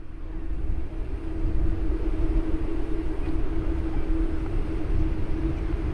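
Distant jet engines of a Boeing 777-300ER on final approach: a steady low rumble with a constant droning hum and a hiss on top, building over the first second or two.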